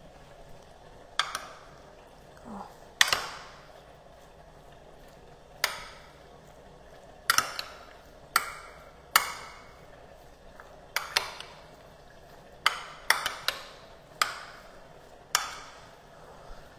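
A small spoon stirring cubed raw chicken and seasoning in a glass dish, clinking sharply against the glass every second or two, each tap ringing briefly.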